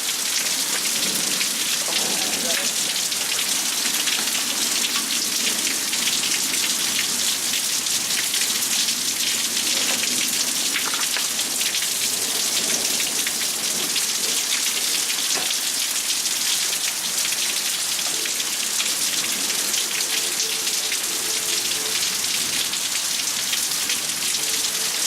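Heavy storm rain falling steadily on surfaces, a dense even patter of drops.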